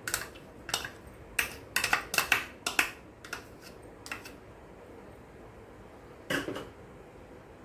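Steel spoon scraping and tapping against a small plastic bowl to knock chopped mint out into a steel mixing bowl: a quick run of clicks and taps for about four seconds, then one more knock about six seconds in.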